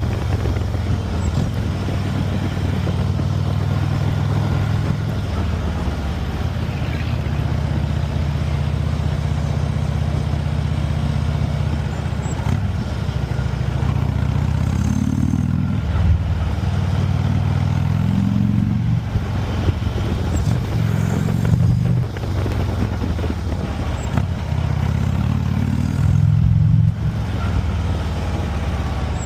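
Harley-Davidson motorcycle engine rumbling steadily, then rising and falling in pitch about four times in the second half as it accelerates and eases off.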